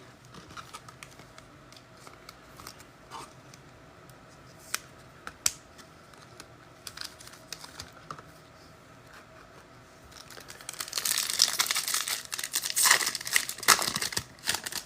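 Light handling clicks of trading cards and packs, then, about ten seconds in, a few seconds of crinkling and tearing as a foil trading-card pack wrapper is ripped open.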